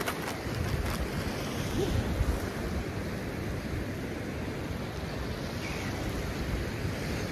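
Ocean surf breaking on a beach, with wind buffeting the microphone in a low, fluttering rumble. A few light clicks in the first second.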